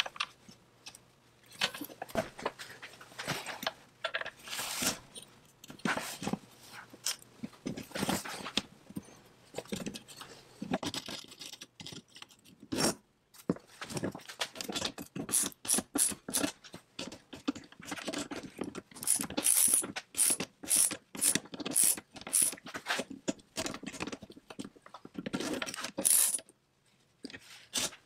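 Wrench and steel hardware clicking and knocking as a nut is tightened to bolt a bucking-spike plate onto the chainsaw's body, with a quicker run of sharp clicks in the second half.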